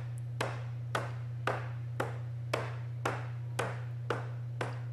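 Rubber mallet striking a cedar log arm section, driving its mortises onto the swing's tenons: a steady run of blows, about two a second, with a steady low hum underneath.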